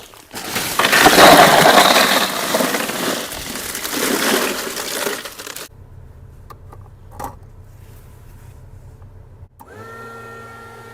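Ice poured into a plastic ice cooler: a loud rattling rush for about five seconds that then stops abruptly. Near the end a steady hum with several even tones starts.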